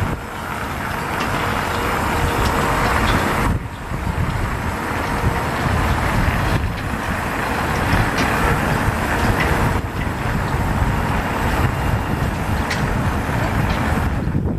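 Steady engine rumble and hiss of a Zamboni ice resurfacer driving across the rink, mixed with outdoor city noise. The sound dips briefly about four times.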